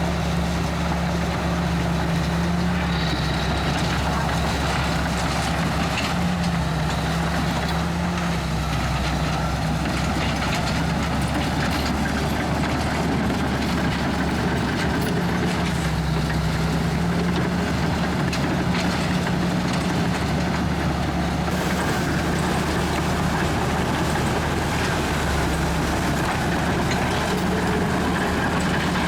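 Komatsu D61EX crawler bulldozer's diesel engine running steadily, its low hum shifting slightly in pitch, with a few short knocks.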